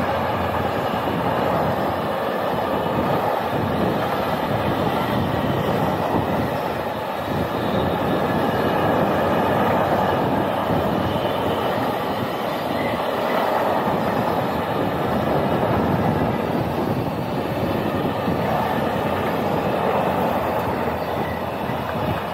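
Freight train's container and tank wagons rolling past: a steady noise of steel wheels running on the rails.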